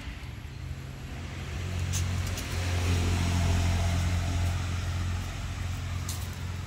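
A motor vehicle driving past: a low engine drone that swells to its loudest about three to four seconds in, then fades away.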